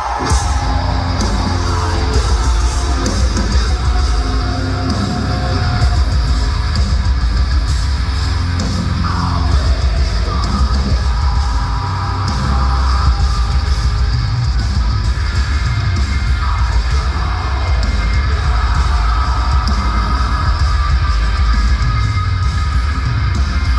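Heavy metal band playing live and loud: distorted guitars and bass over a drum kit, heavy in the low end, with no pause.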